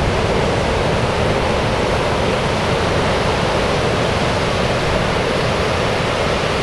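Ocean surf breaking and washing ashore: a steady, unbroken rush of whitewater.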